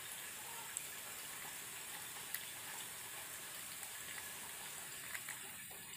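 Soft water swishing as a plastic fish bag is pushed and tilted through a tub of water to let guppies out. There are a few faint clicks, about three-quarters of a second, two and a third seconds and five seconds in.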